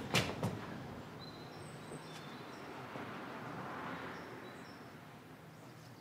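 Quiet ambience with a few faint, short, high bird chirps scattered through it. A couple of sharp knocks come at the very start.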